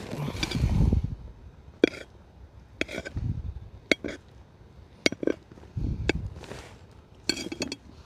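Camp cookware and utensils being handled: a string of sharp clinks and taps, some with a brief metallic ring, between dull knocks from things being set down.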